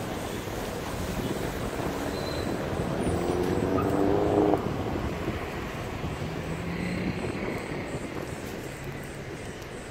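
Road noise of a moving vehicle on wet asphalt, a steady rumble and hiss. About three seconds in an engine revs up with rising pitch, then stops abruptly about a second and a half later.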